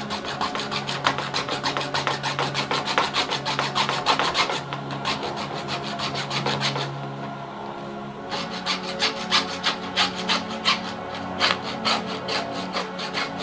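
Small hacksaw cutting through a 3/4-inch PVC pipe: quick, regular rasping back-and-forth strokes, easing off for about a second partway through before resuming.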